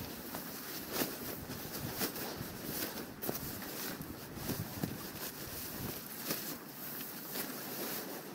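Alpkit Kloke bivvy bag rustling and crinkling in quick, irregular bursts as a person wriggles into it, over a steady wash of wind on the microphone.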